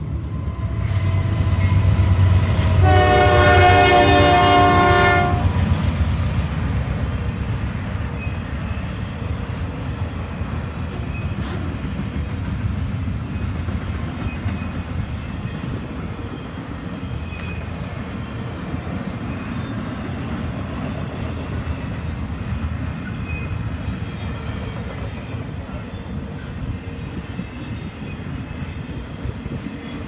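Norfolk Southern diesel locomotive horn sounds one blast for the grade crossing, swelling about two seconds in and ending about five seconds in; it is the loudest sound, over the low rumble of the lead locomotives. After it, the intermodal train's cars roll past steadily.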